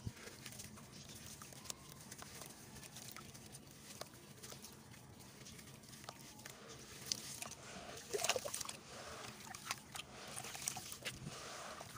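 Wet sand-cement block crumbled and squeezed by hand in a plastic tub of muddy water: gritty crackling and small wet splashes and squelches, busiest and loudest about eight seconds in. The audio is sped up to double speed.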